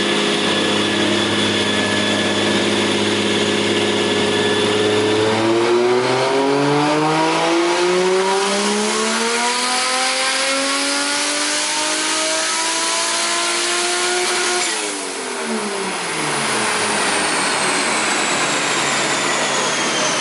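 Big-turbo 1JZ inline-six in a Lexus SC300 drift car making a chassis-dyno pull. It runs steadily at first, then about five seconds in goes to full throttle with the revs climbing smoothly for about ten seconds. The throttle is cut near fifteen seconds and the revs fall away, with a high whine winding down slowly afterwards.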